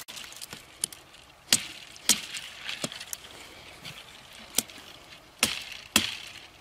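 Large knife chopping into a mesquite branch: a series of sharp, separate knocks at irregular intervals, about six strong ones with a few lighter taps between.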